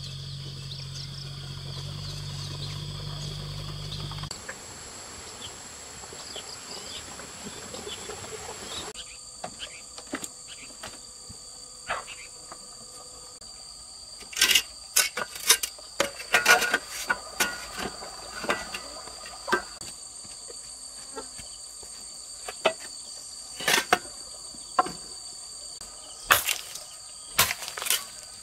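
Insects chirring with a steady high tone, with a low hum in the first few seconds. About halfway in, irregular sharp knocks and strikes start, some in quick clusters, and they are the loudest sounds.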